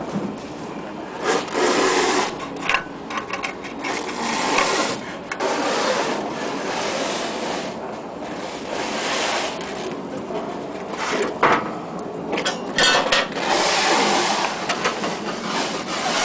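Irregular scraping and rubbing strokes on a terne-coated sheet-metal roof panel as it is marked out against a template, with scattered sharp clicks.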